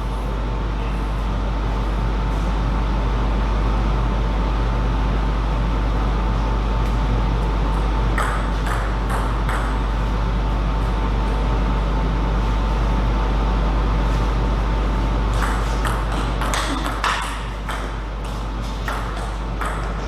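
Table tennis ball clicking off bats and table: a few hits about eight seconds in, then a quicker run of hits over the last few seconds, over a steady low hum.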